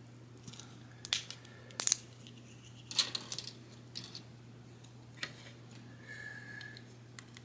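Small plastic model-kit parts clicking and tapping together as they are handled, about five separate sharp clicks with a short high squeak near the end, over a faint steady hum.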